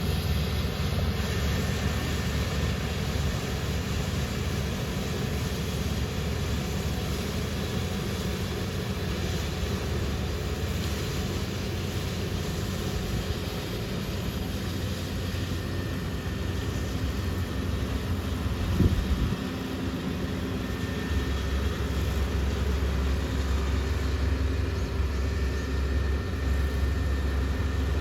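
Machinery running steadily with a low hum, one knock about 19 seconds in, and a deeper hum from about 21 seconds in.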